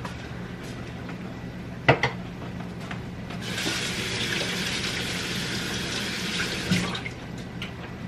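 A sharp knock about two seconds in, then a kitchen sink faucet running for about three and a half seconds as hands are washed under it, shut off with a small clunk.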